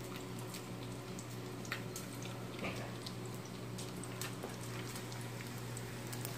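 Ambient background noise: a steady low hum with scattered small clicks and knocks.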